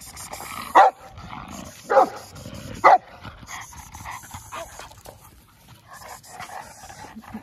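A large dog barks three times, about a second apart, in the first three seconds, followed by quieter scuffling and breathing of the dogs.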